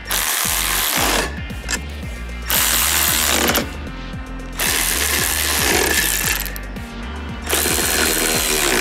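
A cordless ratchet with a long socket extension runs in four bursts of a second or two each, spinning nuts down tight onto threaded studs.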